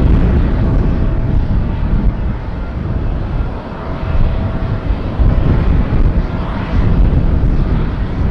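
Jet airliner engine noise from a plane on landing approach, loud and heavy in the low end, with faint steady whining tones over it.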